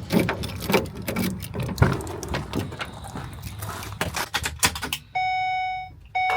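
A run of clicks and knocks, then a steady electronic warning chime from the U-Haul truck's cab starting about five seconds in, stopping briefly and sounding again near the end.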